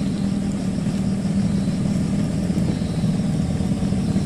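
Steady low rumble of a fast-flowing, flood-swollen river running under a concrete bridge.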